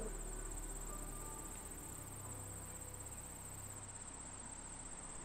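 Crickets chirping in a continuous high trill, with a faint low hum underneath.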